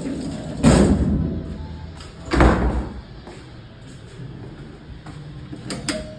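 Two heavy thumps about a second and a half apart, each fading away quickly, over a low background rumble.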